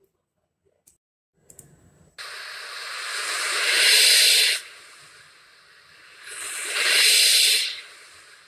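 Loud hissing noise that starts suddenly about two seconds in, swells and cuts off sharply, then swells again and fades away near the end.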